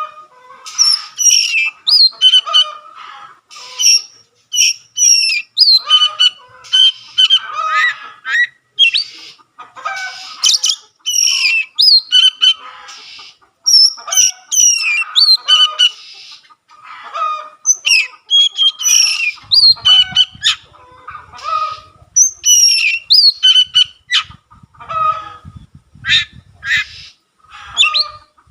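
Oriental magpie-robin in full song: a continuous run of short, varied phrases of clear whistles and harsh, scratchy notes, separated by brief gaps.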